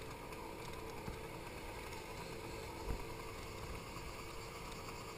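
Motor scooter's small engine running at a steady speed while riding, under an even rush of wind and road noise, with a brief knock about three seconds in.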